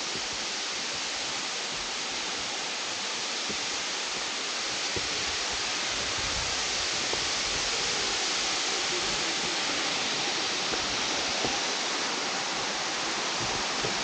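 Waterfall running: a steady rushing hiss of falling water that swells slightly about midway.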